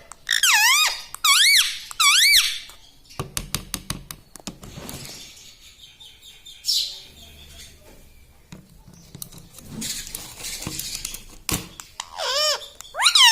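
Pet ringneck parrot giving three squeaky calls in quick succession, each swooping up and down in pitch. Scattered clicks and quieter sounds follow, then another run of swooping squeaks near the end.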